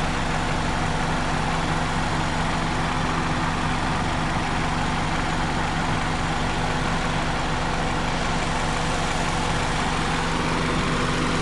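Hyundai Sonata engine idling steadily with the air-conditioning compressor running: a constant hum with an even rushing noise over it. The compressor is weak and passing gas, so the low-side pressure stays high (about 50 psi) and the system gives no cooling.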